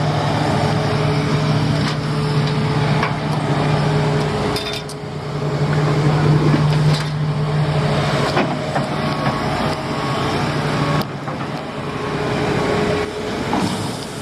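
Heavy construction machinery's engine running steadily, working hard, with several sharp knocks and cracks scattered through.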